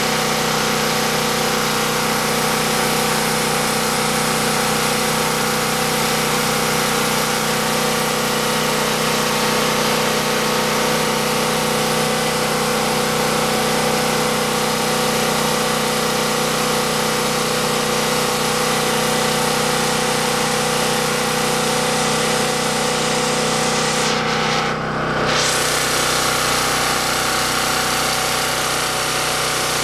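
Champion 4000-watt portable generator (model 46514) with its small single-cylinder gasoline engine running steadily, under load from a 1000-watt electric heater. The engine hum echoes in a warehouse.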